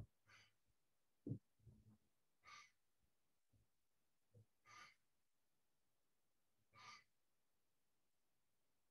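Faint, slow breathing by one person: four soft breaths about two seconds apart, paced with slow tai chi movements. A couple of soft low thumps come about a second and a half in.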